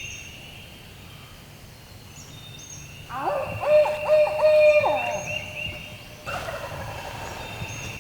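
An owl hooting loudly about three seconds in, a series of bending hoots ending on a falling note, followed about a second later by a wild turkey gobbling. Songbirds sing and chirp throughout.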